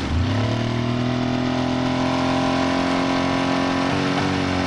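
Outboard boat motor throttled up from neutral: its note rises just after the start, then holds steady at higher revs, with a brief wobble in the note about four seconds in.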